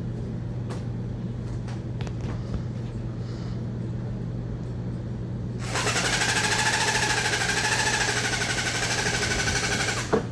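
A handheld electric percussion instrument starts up about six seconds in and buzzes with a rapid, even hammering and a slightly wavering pitch for about four seconds, then stops with a couple of clicks. A steady low hum runs underneath.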